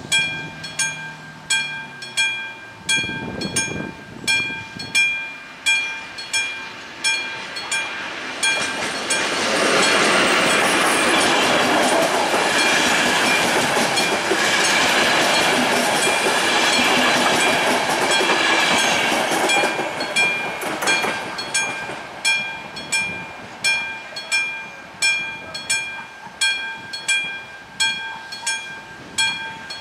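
Level-crossing warning bell of an AŽD 71 signal, a classic bell striking about twice a second. A passenger train passes over the crossing from about nine to about twenty-one seconds in, its running noise drowning out the bell.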